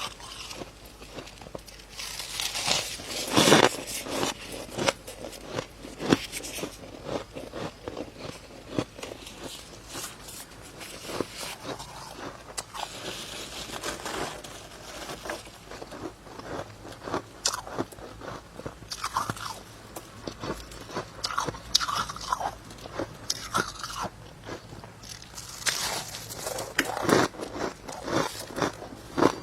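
Powdery freezer frost being bitten and chewed close to the microphone: irregular soft crunches, with heavier bursts of crunching a few seconds in and again near the end.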